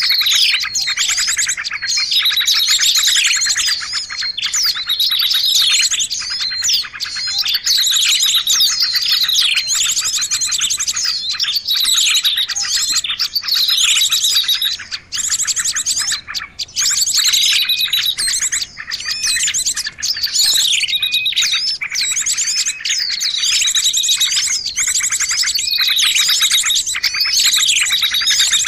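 A busy chorus of many small songbirds: overlapping chirps, fast trills and repeated down-slurred calls, an Indonesian bird-lure (pikat) recording made to draw small birds in.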